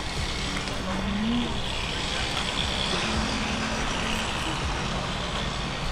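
Road traffic: motor vehicles passing, a steady rumble and hiss with an engine note that rises briefly about a second in.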